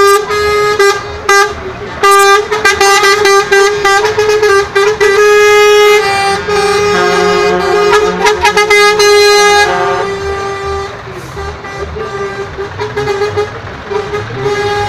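Truck air horns sounding in a rapid series of short toots, then a long held blast of several seconds, over the running of heavy truck diesel engines. About two-thirds of the way in the horns drop back, leaving the rumble of trucks driving past with fainter toots.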